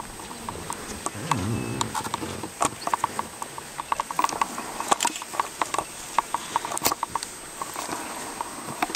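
White rhinoceros grazing close by: quick irregular runs of crisp tearing and crunching as it crops dry grass, several a second.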